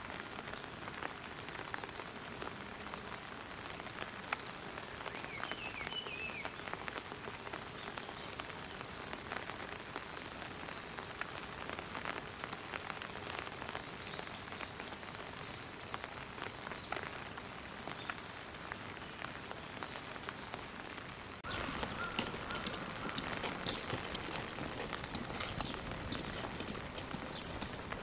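Steady light rain pattering, with many small drop ticks. Near the end it steps up a little louder.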